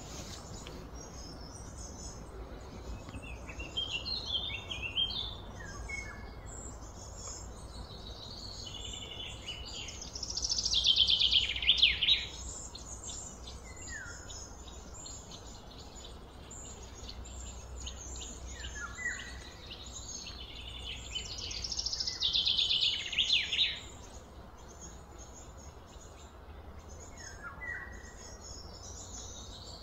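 Outdoor birdsong: many short high chirps and a few falling notes, with two louder stretches of rapid trilling, one about eleven seconds in and one about twenty-two seconds in, over a steady low hum.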